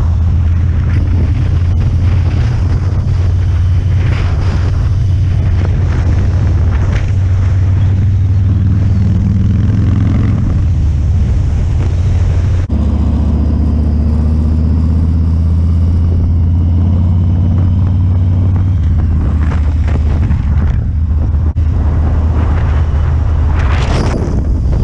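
Harley-Davidson motorcycle engine running steadily at road speed, heard from the bike with wind noise, and a brief drop about halfway through.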